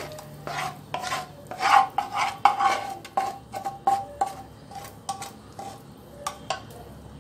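Wooden spatula scraping and knocking against a pan as thick hot caramel with nuts is scraped out onto a steel plate, each knock followed by a short metallic ring. The knocks come several a second, busiest in the middle and thinning out near the end.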